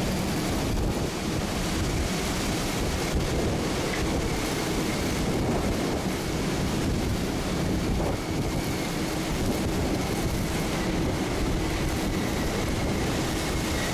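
Hurricane-force wind with driving rain, a steady deep rush that never lets up, with gusts buffeting the microphone.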